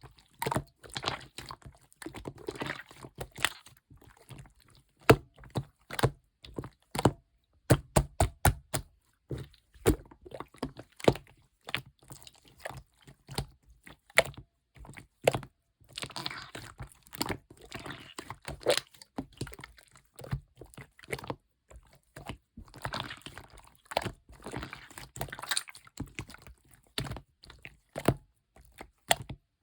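Light-green clear slime being squished and pressed, making a string of sharp pops and clicks with spells of denser crackling.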